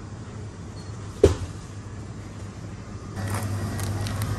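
Supermarket background hum with a single sharp knock about a second in. About three seconds in, a wire shopping trolley starts rolling on the tiled floor: a steady low rumble with light metal rattles.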